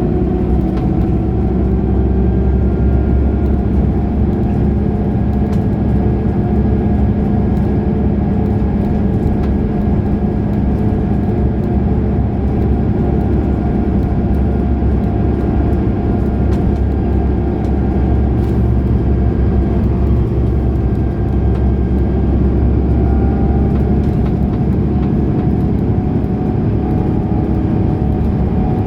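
Mercedes-Benz O530 Citaro Facelift Ü bus running under way, its engine holding a fairly steady note that drifts gently up and down, with a few light clicks and rattles.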